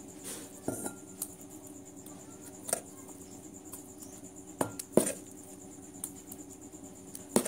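A spoon knocking and scraping against bowls as thick fermented rice-and-urad-dal batter is scooped into a ceramic bowl: a handful of short clinks and knocks, with soft plops of batter, over a faint steady hum.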